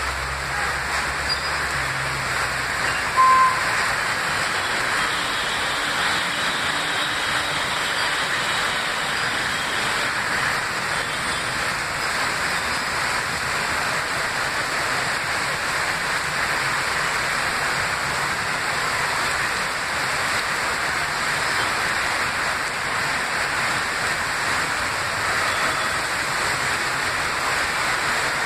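Heavy rain pouring in a steady hiss, with traffic wading through floodwater on the road. A brief loud tone sounds about three seconds in.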